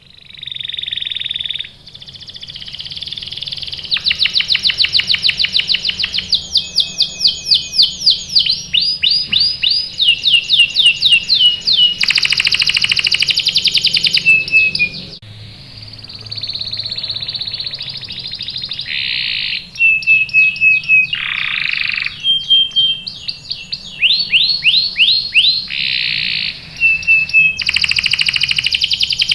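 Domestic canary singing a long, varied song of fast trills and rolls, switching to a new phrase every second or two, with a short lull about halfway through.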